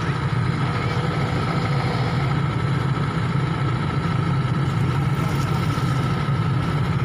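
Heavy diesel engines of an excavator and a loaded dump truck running steadily, a constant low drone with a steady high whine on top.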